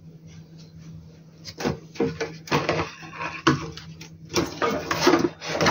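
Handling noise as a circuit board and its cables are worked loose inside an inverter casing: an irregular run of clicks, knocks and rattles starting about a second and a half in, over a low steady hum.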